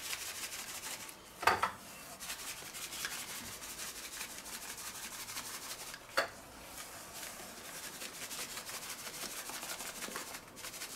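Dry spice rub shaken from a paper bag onto a pork sparerib in a metal roasting pan, with the hand rubbing it into the meat: a faint, steady rustle and patter of granules. Two short, louder sounds come about a second and a half in and about six seconds in.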